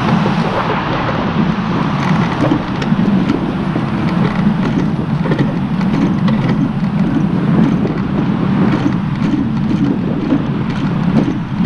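Wind buffeting the microphone of an action camera riding on a moving bicycle: a steady, loud low rush with scattered small clicks and rattles.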